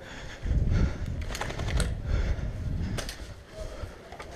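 A player moving on foot in tactical gear: muffled thumps and rustling, with a few sharp clicks.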